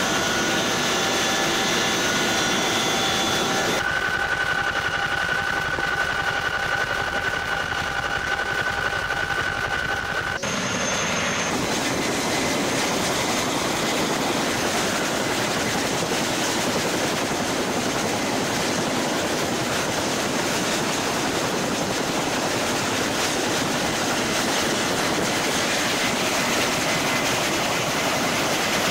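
Helicopter turbine and rotor noise: a loud steady rush with a whine, changing abruptly twice in the first ten seconds.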